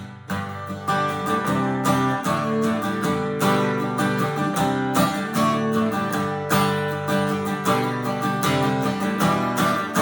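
Acoustic guitar strummed in a steady rhythm, the instrumental introduction to a children's worship song.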